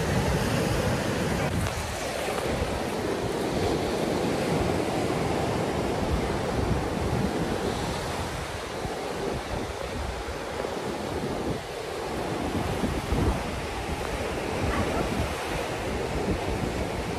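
Ocean surf washing steadily on the shore, with wind gusting on the microphone.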